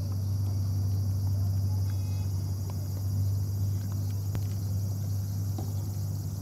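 A steady low hum under a high, steady insect drone, with a few faint ticks.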